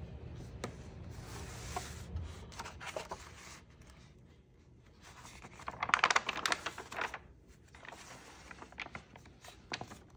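Paper pages of a paperback picture book being turned by hand, rustling several times. The loudest rustle comes about six seconds in.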